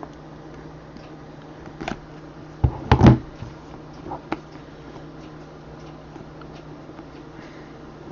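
A few short knocks and rustles of handling, the loudest a quick double knock about three seconds in, over a steady low room hum.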